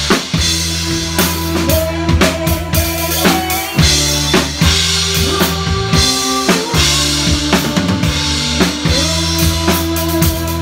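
Live covers band playing: a drum kit with kick and snare beating a steady rhythm under held bass and keyboard notes, the whole band coming in together at the start.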